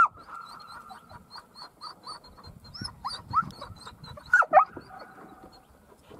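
A dog yelping and barking in short, excited calls, several times, loudest at the start and again about four and a half seconds in.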